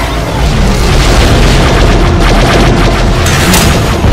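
Explosion sound effect: a loud, sustained low rumble with crackling running through it.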